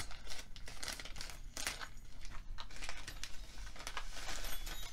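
Rose-print wrapping crinkling and tearing in irregular rustles as a package is opened by hand.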